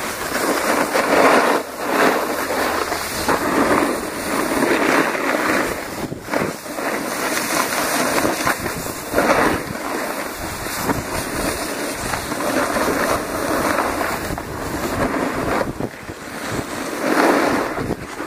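Snowboards sliding and scraping over packed snow, a continuous rushing hiss that rises and falls from one moment to the next, with wind on the microphone.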